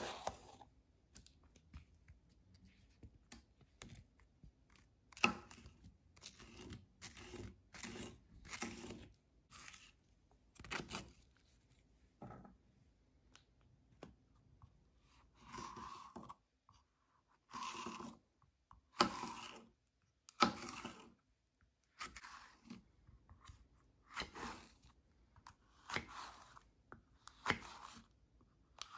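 Kitchen knife slicing through a raw yellow bell pepper onto a flexible plastic cutting mat: a faint run of separate crisp cuts, roughly one a second, with a few short pauses between runs.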